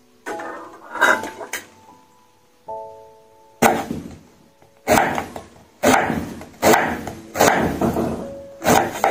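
Kitchen knife slicing through raw daikon radish and knocking on a wooden cutting board, a crisp cut about once a second from a little past a third of the way in, over background music.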